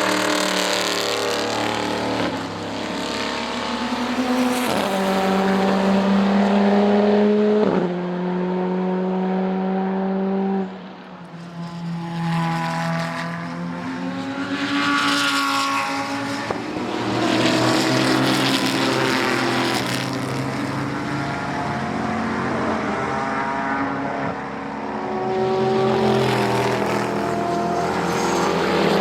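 Sports car race cars passing at speed, one after another. Their engines run at high revs, with the pitch climbing and then stepping down at several upshifts.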